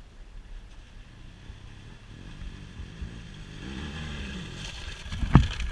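Adventure motorcycle approaching and riding through a shallow creek, its engine note wavering and growing louder, with water spraying from the wheels as it comes close; the sound gets loud near the end as the bike reaches the microphone.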